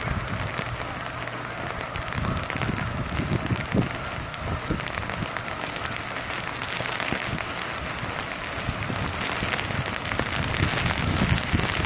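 Hard rain pattering on an umbrella, a dense run of small ticks. Strong wind buffets the phone's microphone in irregular low gusts, heaviest near the end.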